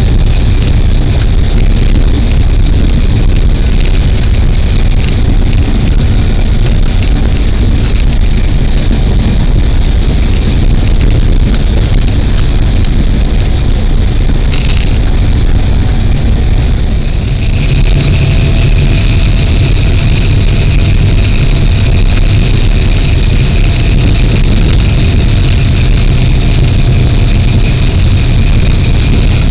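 A diesel train running along the track, heard from inside the driver's cab: a loud, steady low rumble, with a steady whining tone that grows stronger about halfway through.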